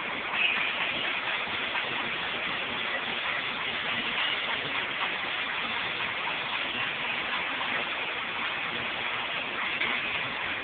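Stick (shielded metal arc) welding with a 7018 electrode: the arc crackles and sizzles steadily as a vertical bead is run on a tee joint.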